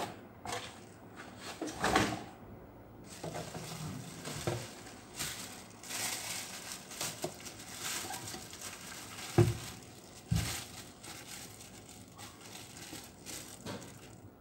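Clear plastic bag crinkling and rustling as hands pull it off a cordless circular saw, with a few dull thumps: one about two seconds in and two more about two-thirds of the way through.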